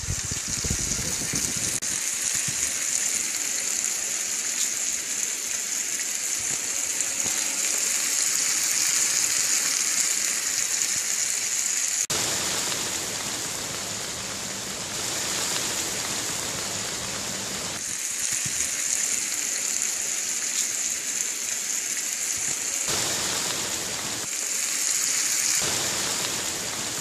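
Marinated fish sizzling as it shallow-fries in a flat pan, cut together with heavy rain falling; both give the same steady hiss, and the sound changes abruptly several times where the shots switch.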